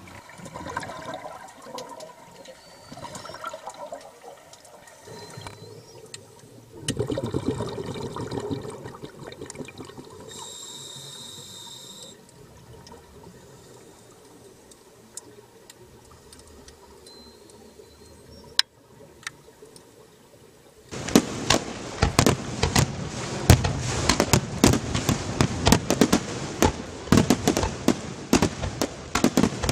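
Underwater scuba bubbling and rushing from divers' regulators. About two-thirds of the way through it gives way to an aerial fireworks display: a loud, dense run of bangs and crackles from bursting shells.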